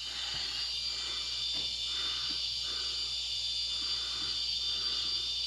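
Old PowerBright 600-watt power inverter running with a faint, steady high-pitched whine and a soft pulsing hum that repeats about every two-thirds of a second. The noise comes from a 15-year-old unit that is not putting out the proper voltage.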